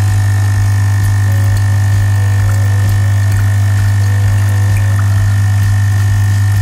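Lavazza A Modo Mio capsule espresso machine's vibratory water pump buzzing loudly and steadily while brewing, with a faint high whine over the hum. The capsule is pierced and coffee is being dispensed.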